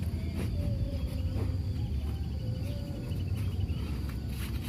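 Insects chirping in a steady high trill with fine rapid pulses, over a constant low rumble.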